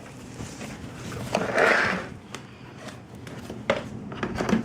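Plastic parts of a Graco TurboBooster seat being handled and slid against each other: a scraping slide lasting about a second, starting just over a second in, then a few short knocks near the end.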